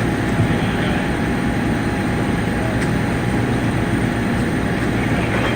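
Steady low engine rumble running without change.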